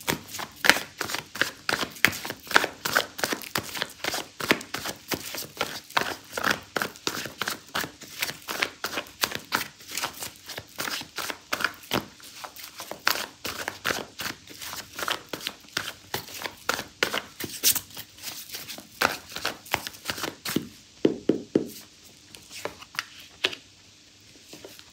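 Tarot deck being shuffled by hand: a long run of quick papery slaps and clicks, a few a second, thinning out over the last few seconds.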